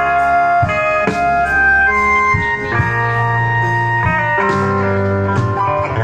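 Live band playing an instrumental passage through a PA system: sustained melody notes over a bass line, with the chords changing every second or so.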